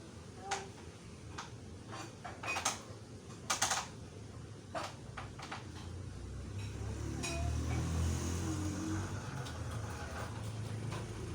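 A string of sharp clicks and clacks from plastic toy trucks being handled, then from about the middle a low rumbling hum that builds up and holds.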